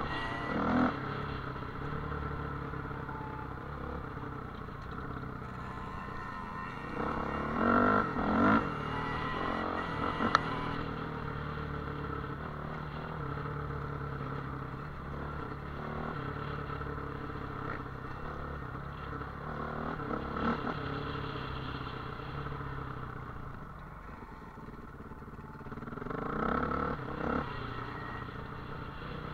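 Off-road motorcycle engine running steadily while riding a dirt trail, with louder throttle swells about a quarter of the way in and again near the end, and a sharp click about ten seconds in.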